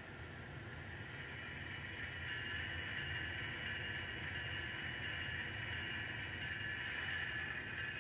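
Sound-equipped N scale model locomotive running along the track: a steady high whine over a low hum, getting louder about two seconds in.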